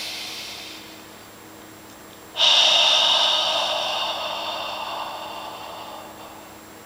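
A person breathing: the end of an in-breath through the nose fades out in the first second, then about two and a half seconds in a long, strong out-breath through the mouth starts suddenly and tapers off over about four seconds. This is deep rib breathing, the ribs widening on the in-breath and drawn in on the out-breath.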